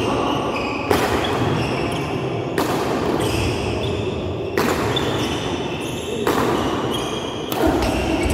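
Badminton rally: racquets strike the shuttlecock five times, one sharp hit every one and a half to two seconds, echoing in a large indoor hall.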